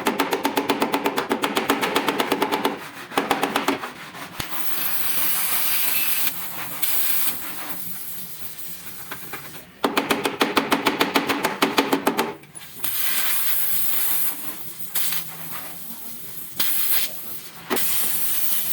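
Compressed air hissing in bursts of a second or two, alternating with spells of a machine pulsing rapidly, about ten beats a second, with a pitched hum. The pulsing comes at the start and again about ten seconds in.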